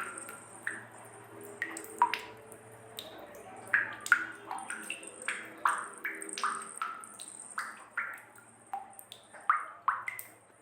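Water drops plinking irregularly, a few each second, over a faint low hum.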